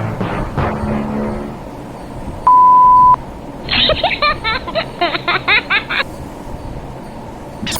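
A loud, steady electronic beep lasting under a second, then about two seconds of a thin-sounding inserted voice clip, as a comic sound effect.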